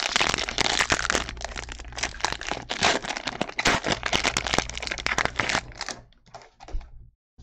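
Crinkling and crackling of Bowman Chrome trading cards and their foil packs being handled by hand: a dense run of rustles and small sharp clicks that thins to a few faint rustles about six seconds in.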